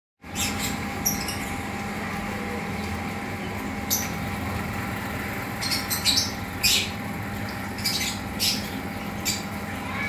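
Lovebird giving short, sharp, high-pitched calls at irregular intervals, more often in the second half, over a steady background hum.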